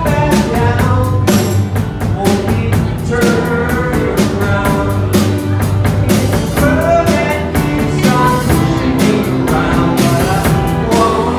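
A live rock band playing a song: a drum kit keeps a steady beat under electric guitar, bass and keyboard.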